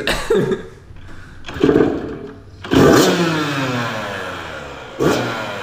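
Yamaha YZ85 85cc two-stroke dirt bike engine revved in three short throttle blips. Each rev falls back in pitch as it dies down, and the second one is the loudest.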